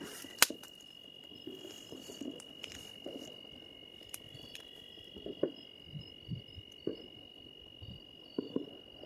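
Distant firecrackers and gunshots going off: one sharp crack about half a second in, then scattered fainter pops and thuds. A steady high-pitched whine runs underneath.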